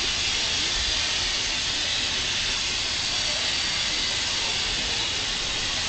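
Steam locomotive hissing steadily as it stands with steam up, with faint voices in the background.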